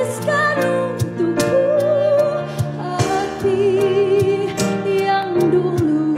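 A woman singing a Malay pop song live into a handheld microphone, holding long notes with vibrato over band accompaniment with regular drum beats.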